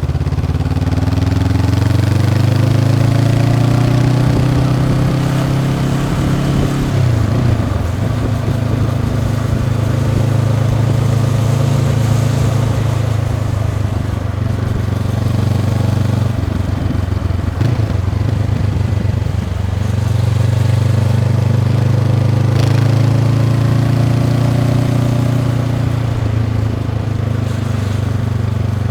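2022 Honda CB500X's parallel-twin engine through its stock exhaust while riding. The engine note climbs in the first few seconds, drops briefly about seven seconds in, holds steady, dips again a few seconds before twenty seconds, then climbs once more and eases off near the end.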